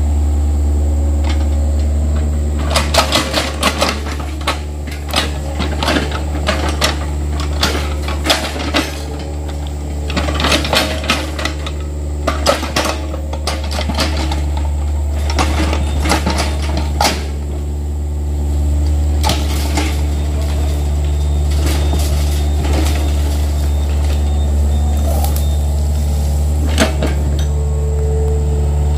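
Yanmar mini excavator's diesel engine running steadily while it digs, with a quick run of metallic clanks and knocks from the bucket and arm between about three and seventeen seconds in, and one more knock near the end.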